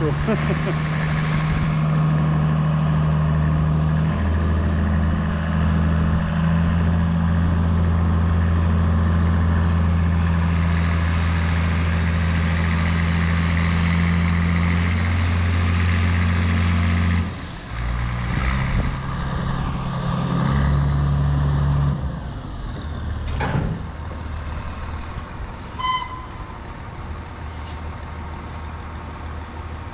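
Diesel engine of a front-end loader running hard under load as it pushes a steam locomotive, a steady loud drone. About two-thirds of the way in it drops off suddenly, comes back up briefly, then settles to a much quieter idle.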